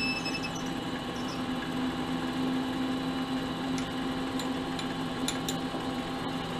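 Mini lathe motor running steadily in reverse with a hum, backing a 2-56 tap out of a brass hex-stock nut. A few light clicks come between about four and five and a half seconds in.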